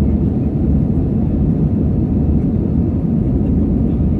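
Jet airliner cabin noise during the climb after takeoff: a steady low rumble of engines and rushing air, heard from inside the cabin at a window seat.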